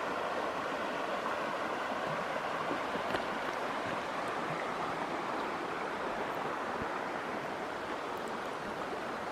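A creek flowing, a steady even rush of water.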